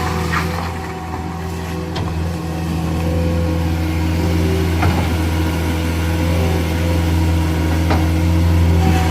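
Caterpillar 236D skid steer loader's diesel engine running steadily, with a few faint sharp clicks over it.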